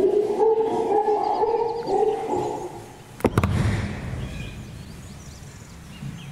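Chimpanzees hooting, several overlapping low pitched calls that die away after about two and a half seconds. A sharp click follows, then only a quieter hollow hum from the enclosure hall.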